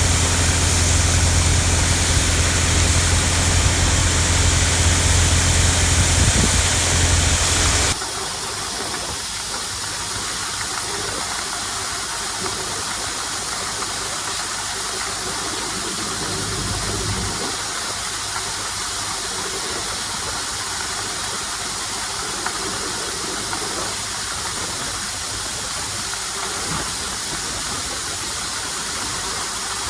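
A heavy farm-machinery engine running steadily with a strong low hum, cutting off abruptly about eight seconds in to a quieter, steady rushing hiss with a faint engine hum beneath it.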